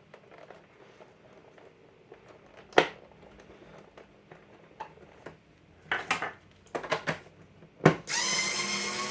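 A few clicks and knocks of a power screwdriver being set against a tight screw in a plastic phone housing, then about eight seconds in its motor starts running steadily, driving the screw out.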